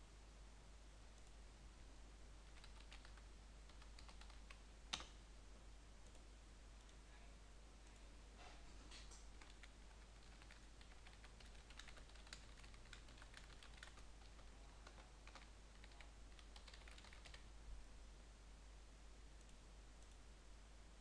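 Faint clicks of a computer keyboard and mouse: a few scattered clicks with one sharper click about a quarter of the way in, then a run of typing through the middle.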